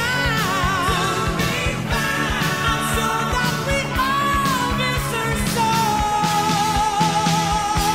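Rock music with a sung melody over a steady drum beat.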